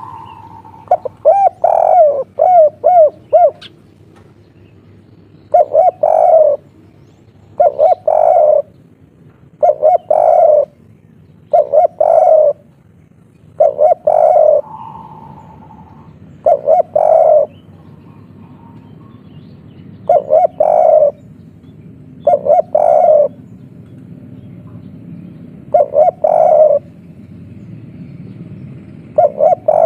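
Spotted dove cooing its three-part 'kuk 3' song again and again, about one phrase every two seconds. It opens with a quick run of short rolling notes about a second in.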